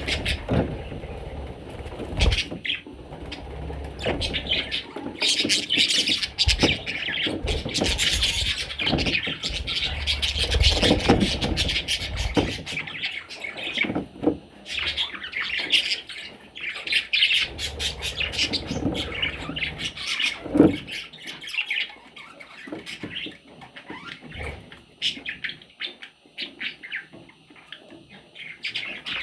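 Budgerigars chirping and squawking in quick, dense chatter that is busiest through the middle and thins out near the end, with scattered bumps and rustling.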